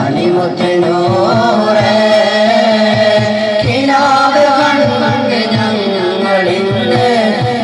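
A group of male voices singing a qawwali together through microphones and a PA, with long held, ornamented notes over a steady low drum beat of about three strokes a second.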